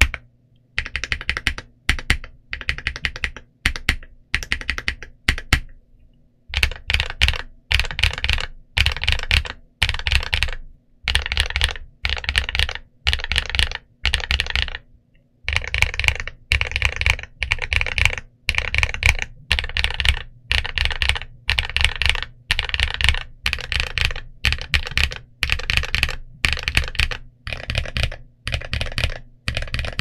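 Typing on an XVX M68 mechanical keyboard with a walnut wooden case, Medium Purple switches and MOA-profile dye-sub PBT keycaps: bursts of fast keystrokes about a second long with short pauses between. The typing is lighter for the first few seconds and fuller after a brief pause about six seconds in.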